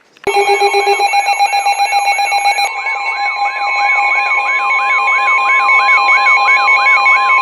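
Several weather alert radios sounding their alarms at once for a severe thunderstorm warning: a rising sweep that repeats about two and a half times a second over steady beeping tones. About two and a half seconds in, the steady NOAA Weather Radio 1050 Hz warning alarm tone joins them.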